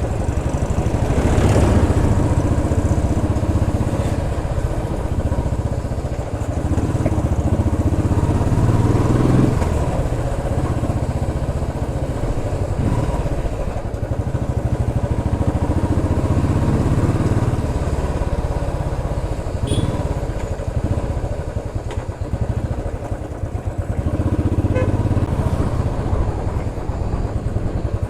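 Royal Enfield Classic 350's single-cylinder engine and exhaust while the bike is ridden through streets, the engine note easing off and picking up again several times.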